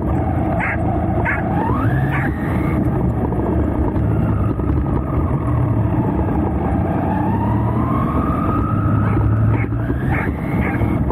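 Whine of a JLB Cheetah RC car's brushless electric motor, rising and falling in pitch with the throttle, over a steady low rumble of the car running on dirt. A dog gives a few short barks near the start and again near the end.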